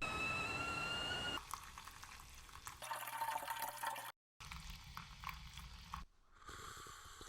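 Coffee being made, heard in short edited cuts: a whistle-like tone rising slightly for about a second and a half, then water pouring and dripping.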